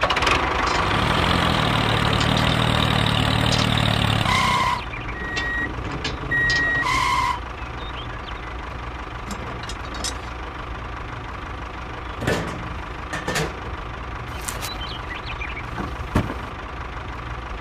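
Vehicle engine running steadily, louder for the first few seconds. A pair of high electronic beeps with a held tone between them comes around the middle, then the engine runs more quietly with occasional clicks.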